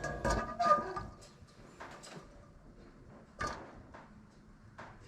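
Workbench handling noises: a quick cluster of knocks and clinks with a brief metallic ring in the first second, then a single knock about three and a half seconds in.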